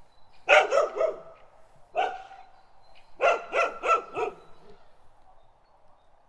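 Dog barking in quick runs: a burst of several barks, a single bark about two seconds in, then another rapid run of barks a little after three seconds.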